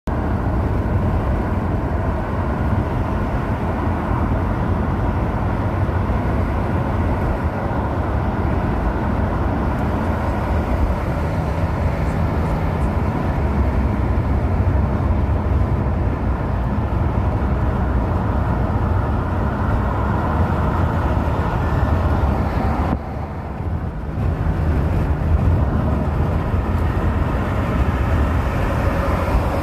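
Steady low rumbling noise with no clear pitch, dropping briefly about 23 seconds in.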